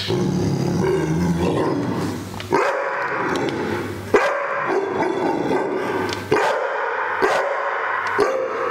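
Pit bull-type dog barking, with about five sharp barks a second or two apart from a couple of seconds in.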